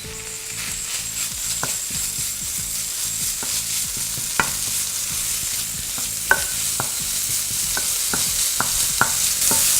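Pounded curry spice paste frying in a hot pan with only the oil from its chili paste, sizzling steadily and growing louder, while a utensil stirs it with sharp, irregular clicks and taps against the pan, more often near the end.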